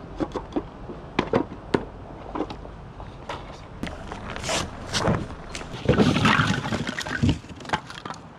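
Sharp wooden clicks and knocks as the slotted plywood pieces of a firewood stand are fitted together, then split firewood clattering as the logs are dropped and stacked onto the stand, loudest a little past the middle.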